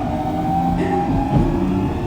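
Fukuoka City Subway 2000 series train's Hitachi GTO-VVVF inverter whining in several steady tones that step up in pitch as the train accelerates, over the rumble of the running gear.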